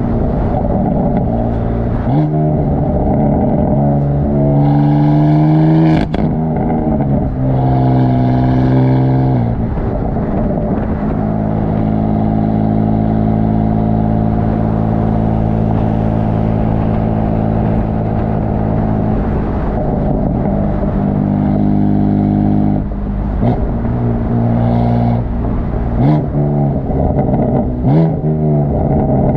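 BMW F82 M4's twin-turbo 3.0-litre straight-six exhaust under way: the pitch rises twice under acceleration in the first ten seconds, holds steady through a long cruise, then goes up and down with throttle changes, with several short, sharp pops and crackles near the end.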